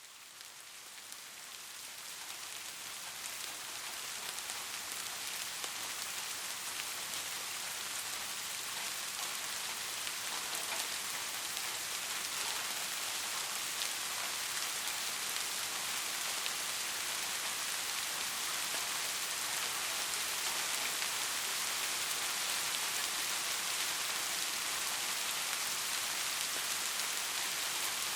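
Soft, steady rain falling, an even hiss of many small drops pattering on a surface, fading in over the first few seconds and then holding steady.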